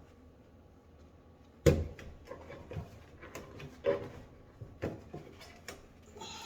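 Washing machine hose fittings and parts being handled and fitted back on, starting with a sharp knock and followed by irregular small clicks and knocks.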